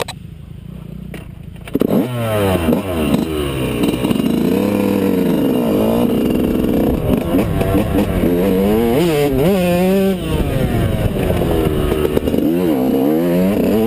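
Yamaha YZ125 two-stroke single-cylinder dirt bike engine, quieter at first, then revving hard from about two seconds in as the bike pulls away. Its pitch climbs and drops over and over with the throttle as it is ridden round the motocross track.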